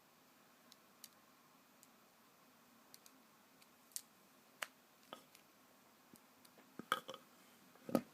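Small clicks and taps of tools and parts during an iPhone 4 battery removal. There are a few faint ticks, then sharper single clicks about four and five seconds in, a quick run of clicks near seven seconds and a louder knock near the end.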